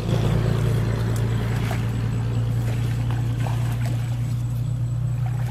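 A steady, low engine drone runs throughout, with light splashing and trickling of water.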